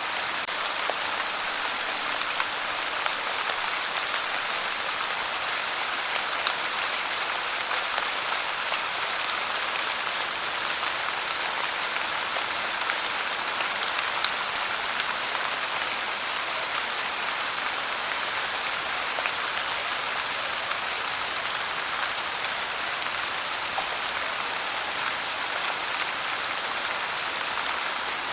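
Steady rain falling, an even hiss with scattered drop ticks on surfaces.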